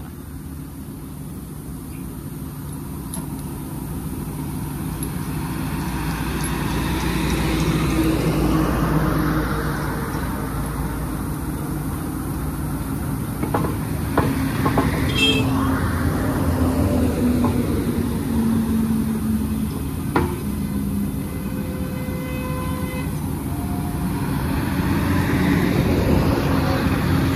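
Heavy vehicle engines running, a steady low drone that swells about eight seconds in, eases off and swells again near the end. A few sharp knocks sound through it about halfway in.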